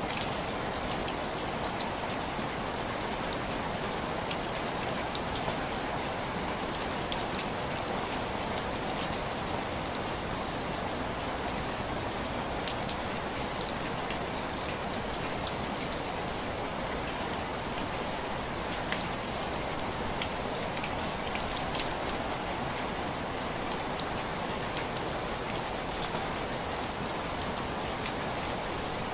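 Steady rain, with many small drops tapping sharply against window glass over a continuous hiss.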